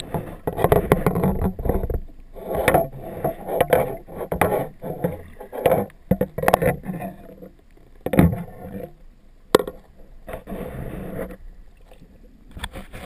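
A camera's lens cover, dangling on its lanyard, knocks irregularly against the camera's underwater housing. Under the knocks runs muffled, surging water noise picked up through the housing.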